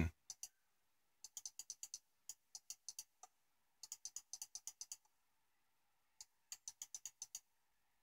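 Faint computer mouse-button clicks in quick bursts of several clicks, about five or six a second, with short pauses between bursts, clicking a web page's frame-step buttons back and forth.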